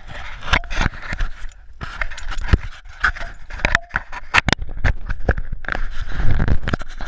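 Close handling noise on a GoPro Hero 3 strapped to a dog's vest: irregular clicks, knocks and scrapes as fingers adjust the camera and its mount.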